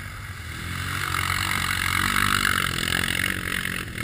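Quad bike (ATV) engine running steadily while riding through mud and water, under a loud hiss of spray and wind that swells toward the middle.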